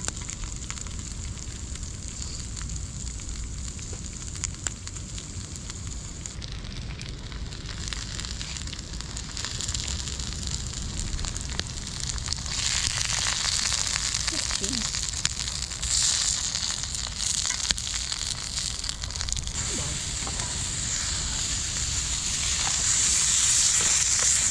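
Food sizzling in a skillet over a wood fire in a fire box stove, with small crackles from the burning wood; the sizzle grows louder about halfway through.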